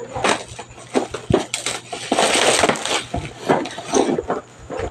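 Bubble wrap and plastic packaging crinkling and crackling as a parcel is torn open by hand, with the densest rustling about halfway through.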